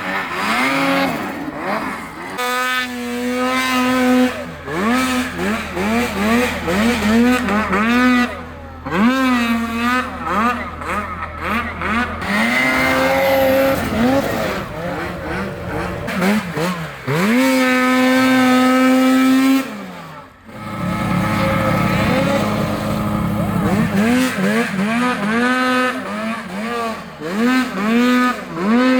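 Snowmobile engines revving up and down over and over, the pitch rising and falling every second or so with several sleds overlapping, and a short drop-off about two-thirds of the way through.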